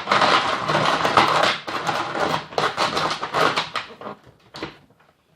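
Snoopy Snow Cone machine's hand crank being turned, its blade shaving an ice cube with loud grinding and scraping in quick, uneven strokes. The plastic machine shakes as it is cranked. The grinding stops near the end.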